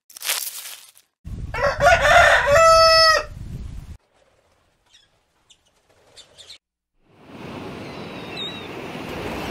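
Rooster crowing once: a single crow of about two seconds, ending on a held note. It is followed by a few faint chirps, and later by a steady outdoor hiss with a brief bird call.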